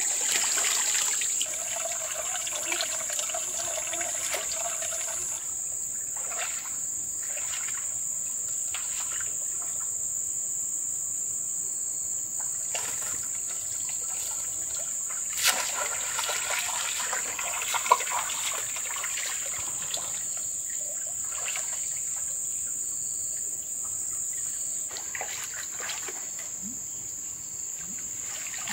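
Muddy pond water splashing and trickling as a hand net is scooped through the shallows of a drained fish pond, with a few sharper splashes about halfway through. A steady, high insect chorus runs underneath.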